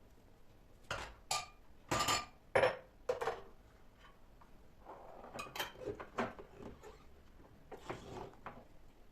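Kitchen dishes and utensils knocking and clinking as they are handled. There is a quick run of sharp clinks in the first three seconds or so, then softer scattered knocks.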